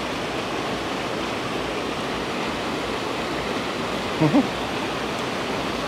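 Mountain stream rushing through a narrow rock gorge and pouring over a small fall into a pool: a steady rushing noise. A brief voice sound breaks in about four seconds in.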